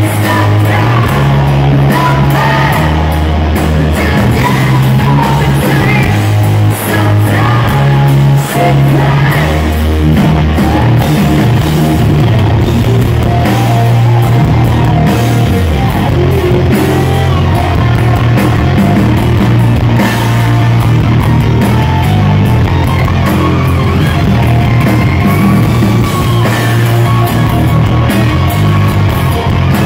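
Live rock band playing a power ballad through a PA: electric guitars, bass guitar and drum kit, with a lead singer's vocals over them, heard loud and steady from the crowd.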